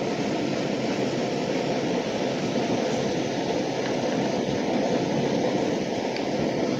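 Water boiling steadily in a pan with an egg poaching in it.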